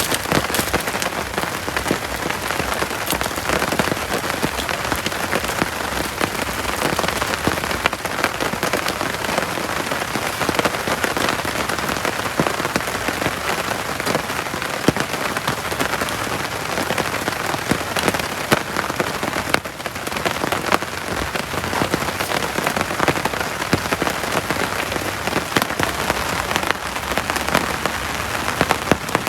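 Heavy tropical rain falling steadily, a dense hiss of countless drop hits.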